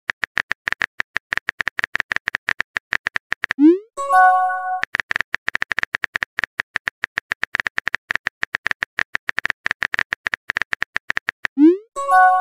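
Phone-app keyboard typing sound: a rapid run of short, even taps as a text message is typed. It breaks twice, about a third of the way in and again near the end, for the message-sent effect, a quick rising swoop followed by a short chime.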